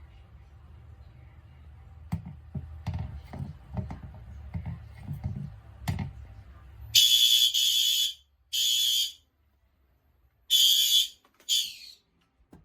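Fire alarm horn strobe sounding four short, loud electronic horn blasts about a second long or less, unevenly spaced, the last one broken up: the brief horn signal given when a device is tripped during a fire alarm walk test. Before the horns, a low rumble with a few sharp knocks.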